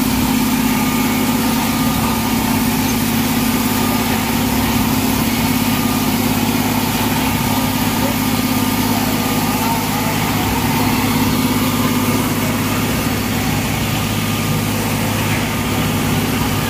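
The diesel engine of a Plasser 09-32 CSM track tamping (sleeper packing) machine running steadily at an even pitch.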